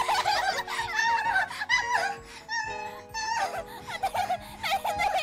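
Wordless singing with a wide, wavering vibrato, over background music with steady held notes.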